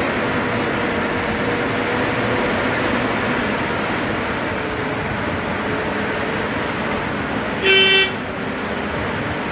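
Bus engine and road noise heard from inside the driver's cab while the bus is under way, steady throughout. Near the end comes one short horn toot.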